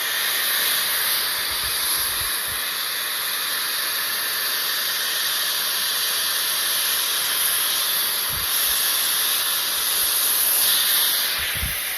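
Shark FlexFusion hair dryer running with its styling brush attachment: a steady rushing hiss of air, with a few soft low thumps.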